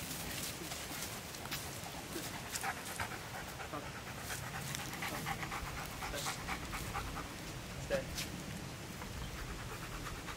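A dog panting while it eats, with irregular chewing clicks and one sharper click about eight seconds in.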